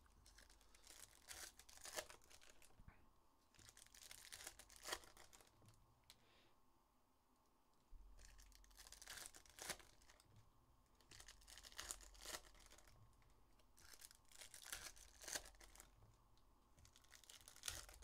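Foil wrappers of Upper Deck hockey card packs being torn open and crinkled by hand, in faint short bursts of tearing and rustling every second or so.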